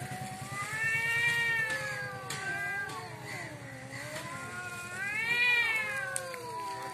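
Cats caterwauling in a face-off: long, drawn-out yowls that waver up and down in pitch, swelling about a second in and again near the end. It is the threat yowling of two cats squaring up before a fight.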